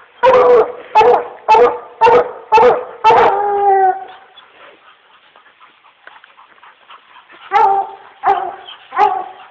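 Dog barking treed at its quarry: a run of sharp barks about two a second, the last drawn out and falling in pitch, then a pause and three more barks near the end.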